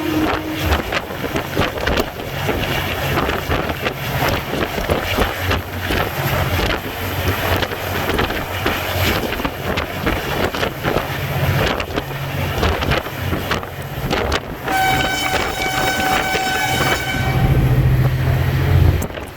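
Passenger train running on the line, a steady rumble with rapid wheel-on-rail clatter and wind on the microphone. About fifteen seconds in, the locomotive's horn sounds once for about two seconds, followed by a heavier low rumble.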